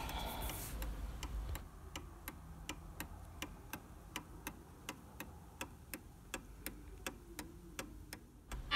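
Antique Sessions Clock Company mantel clock's spring-driven brass movement ticking steadily, the escapement beating about three times a second as the pendulum swings.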